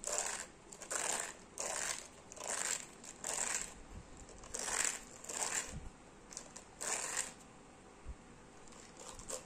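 Fingers pulling loose hair out of the plastic bristles of a detangling hairbrush: about ten short, dry rasps as the bristles are dragged, stopping about seven seconds in, then one more near the end.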